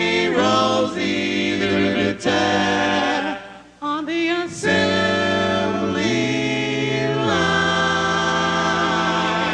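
Unaccompanied vocal group singing a doo-wop style song in close harmony, with a bass voice carrying the low part. The singing drops away briefly about three and a half seconds in, then the group holds long chords.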